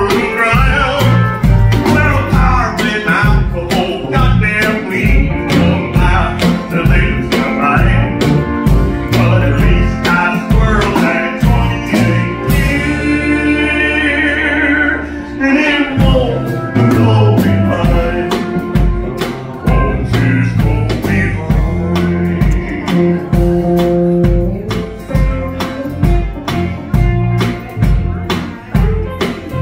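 Live country band playing an instrumental passage led by pedal steel guitar, with electric guitars, bass and drums. About halfway through, the drums drop out for roughly three seconds under a held, wavering note before the full band comes back in.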